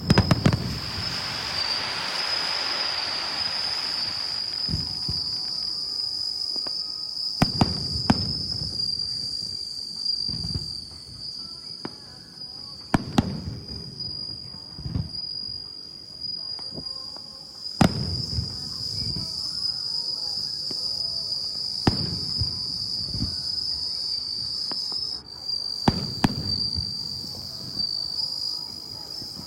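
Aerial firework shells bursting with sharp booms every few seconds, about seven in all, each followed by a rolling echo, and a crackling shower after the first. A steady high insect trill runs underneath.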